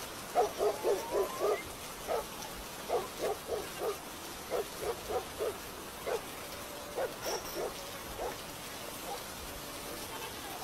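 A dog barking in quick runs of four or five barks, about four a second, with rain hissing steadily underneath.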